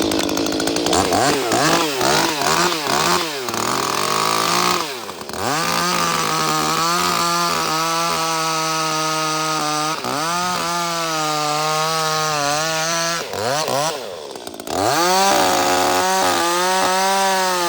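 Ported Echo CS-310 two-stroke chainsaw revving up and cutting through a log at high revs. It drops off the throttle briefly twice, about five seconds in and again after about thirteen seconds, then comes back up to full revs.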